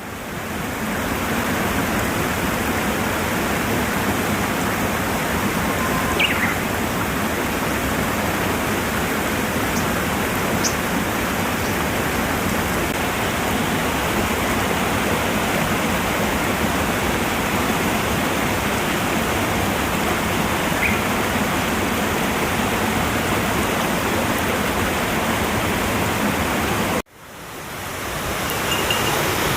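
Waterfall pouring into its pool, a steady full rush of falling water. A few faint, short high chirps sit over it, and near the end the sound cuts out briefly and fades back in.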